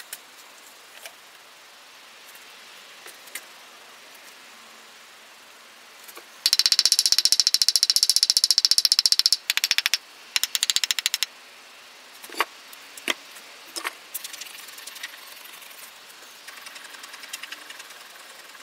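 Rapid, evenly spaced rattling taps of a wooden stick rapping a sprue former set in a sand casting mold, loosening it in the sand so it can be drawn. The taps come in a run of about three seconds, a short pause, then about a second more, followed by a few single knocks.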